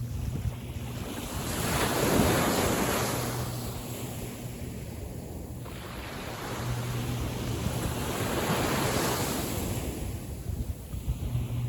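Small waves of a calm sea breaking and washing in, two swells about six seconds apart, with wind buffeting the microphone.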